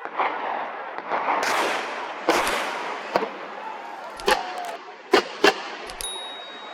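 About six gunshots from hunting guns, sharp and separate, spread over some four seconds, two of them close together.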